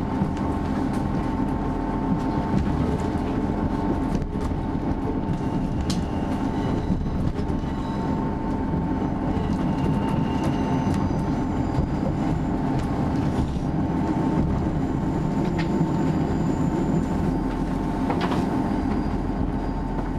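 Interior of a Class 158 diesel multiple unit rolling slowly into a station: a steady rumble from the wheels and underfloor diesel, with a steady hum, a few sharp clicks as the wheels cross pointwork, and faint brief wheel squeals on the curved track.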